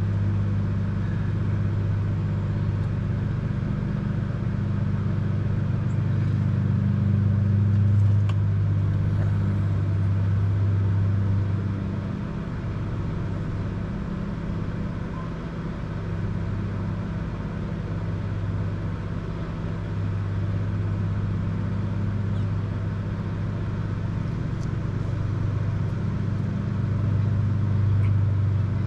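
A steady, low mechanical drone that swells and eases a little in level.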